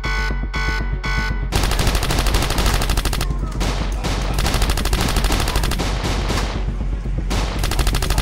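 Rapid automatic gunfire, a long dense run of shots with two short breaks. Before it, a pulsing electronic music beat stops about a second and a half in.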